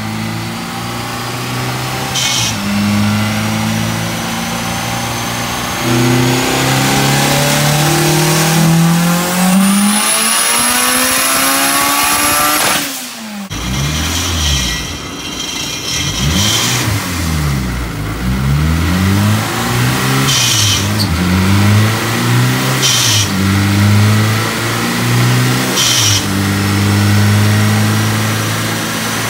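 Turbocharged Honda B-series four-cylinder with a Precision 62 mm turbo running on a chassis dyno. Its note climbs steadily for about ten seconds with a rising turbo whistle, then cuts off. After a short break it is revved up and down several times, with short hisses between revs.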